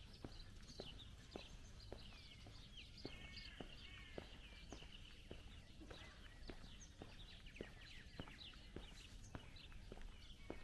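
Faint footsteps at an even walking pace, about two steps a second, with small birds chirping and twittering over a low background hum.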